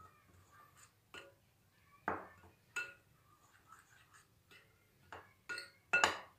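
Metal spoon clinking against a glass mixing bowl while stirring dry flour: a string of irregular clinks, the loudest near the end.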